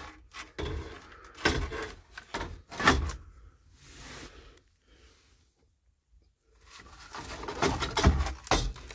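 Knocks, clunks and rattles as the old air-conditioning vent is worked loose and pulled out from under a car's dashboard. There are a few separate knocks early, a quiet pause past the middle, then busier clatter near the end.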